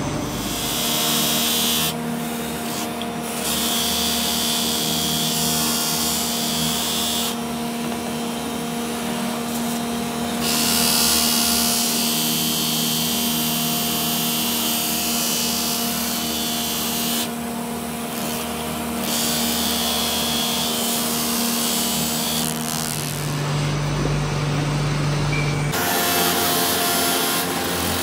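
A bench polishing wheel's motor runs with a steady hum. A metal motorcycle wheel hub is pressed against the spinning wheel, making a hissing rasp that comes and goes every few seconds as the part is worked against it.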